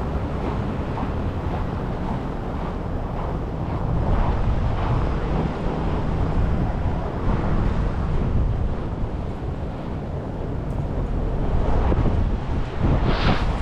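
Strong winter storm wind buffeting the camera's microphone: a heavy, rumbling roar that rises in gusts about four seconds in and again near the end.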